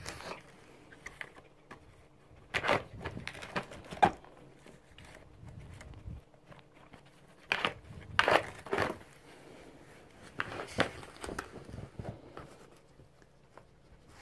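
Red fox biting and tearing at a cardboard box, the cardboard crackling and ripping in three bouts of a second or two each.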